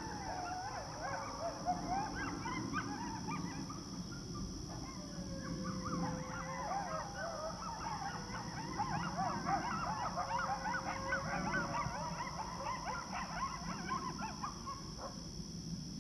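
A pack of coyotes howling and yipping together: a dense chorus of short rising and falling yips, with a few longer drawn-out howls. The chorus dies away about a second before the end.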